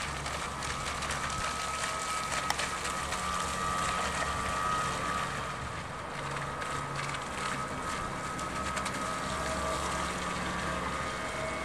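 Electric motor of a vintage Nor-Star model speedboat running at speed across the water, a thin steady whine over the hiss of the water.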